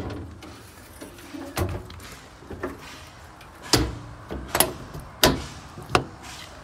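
Service-body compartment doors on a work truck being shut and their T-handle latches worked: a run of sharp metallic clacks and door slams, about five over several seconds, the loudest two a little before and after the midpoint.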